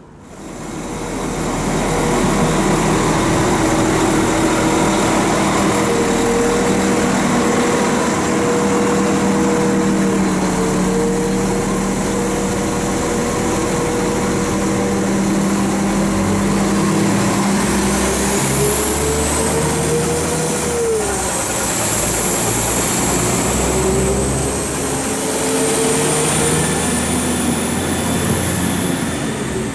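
Class 195 diesel multiple unit running at the platform, then pulling away. Its engine and transmission note climbs in pitch, drops sharply at a gear change about two-thirds of the way through, and climbs again, with a high whine rising alongside.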